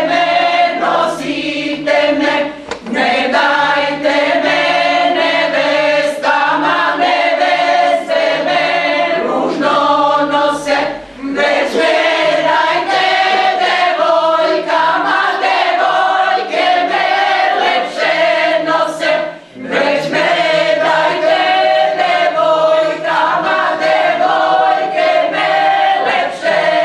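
Women's choir of older amateur singers singing a song without accompaniment, many voices together, with brief breaths between phrases about 3, 11 and 19 seconds in.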